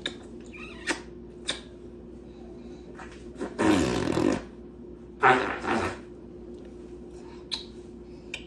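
A woman blowing two loud, buzzy raspberries against a baby's cheek, a little over a second apart, with a few short kiss smacks before them.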